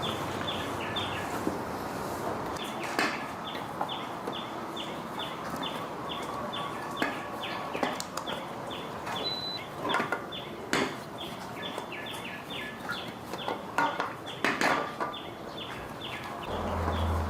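A short high chirp repeated about three times a second, with scattered sharp clicks and knocks.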